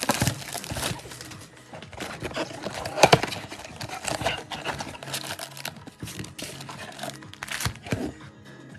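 Foil trading-card pack wrappers being torn open and crinkled, in irregular crackles, over background music.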